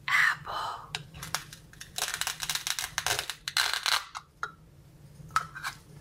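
Velcro ripping apart as a toy knife cuts a plastic velcro toy apple into its two halves: a rapid crackling tear lasting about two seconds, followed by a couple of light plastic clicks.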